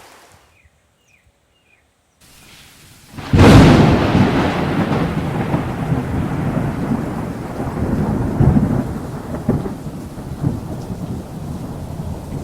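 A sudden loud thunderclap about three seconds in, rolling away into a long, slowly fading low rumble, with rain falling underneath.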